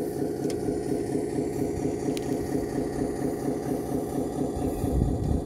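An engine idling steadily with an even throb, swelling into a louder low rumble about five seconds in. Two faint clicks sound over it.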